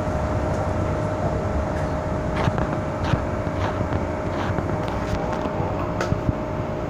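MTR M-Train electric multiple unit heard from inside the car, running and slowing as it nears a station: a steady low rumble that eases off, a constant whine, and a string of sharp clicks and knocks in the middle seconds.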